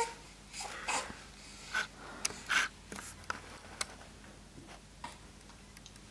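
A baby bouncing in a doorway jumper, the harness and straps giving short scratchy rubbing and creaking sounds. The sounds come irregularly through the first few seconds and then thin out.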